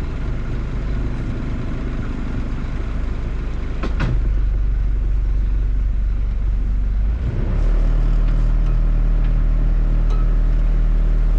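A sailboat's inboard diesel engine running steadily under way at low speed, with a single sharp click about four seconds in. About seven seconds in the engine note dips briefly, then runs louder and fuller.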